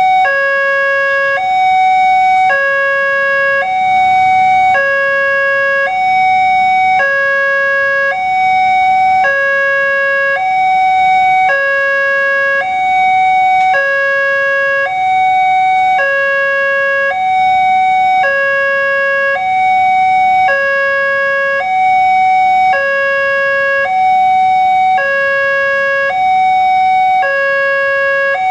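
Railway level-crossing warning alarm sounding with the barrier down, the signal that a train is approaching. It is an electronic two-tone signal that alternates steadily between a lower and a higher note, each held about a second.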